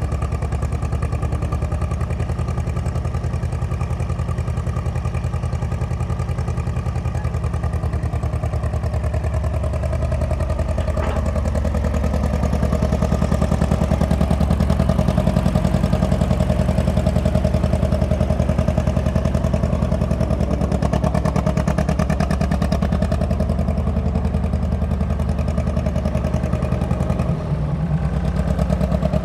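1954 International T-9 crawler dozer's engine running steadily, a little louder from about halfway through.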